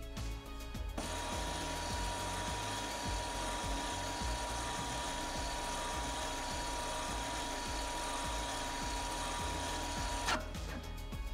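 The rear electronic parking brake caliper motors of a 2023 Range Rover (L460) running with a steady whine as they retract the parking brake into service position. They start about a second in and stop with a click near the end. Background music plays underneath.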